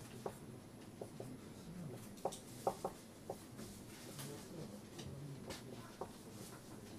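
Handwriting: scratchy strokes and a string of light clicks and taps, the loudest clustered two to three seconds in.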